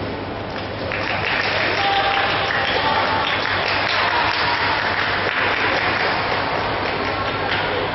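Spectators applauding after a badminton point ends. The clapping swells about a second in and eases off near the end.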